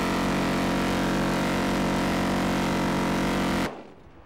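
Dillon Aero M134 minigun, an electrically driven six-barrel 7.62 mm Gatling gun, firing one sustained burst at about 50 rounds a second: a continuous loud buzz that cuts off suddenly near the end.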